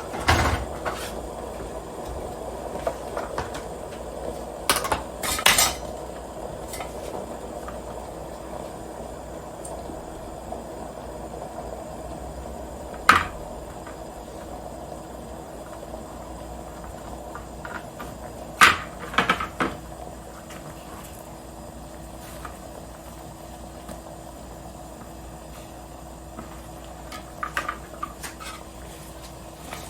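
Kitchen utensils and dishes clinking and knocking in short scattered clusters, about five times, over a steady low background noise.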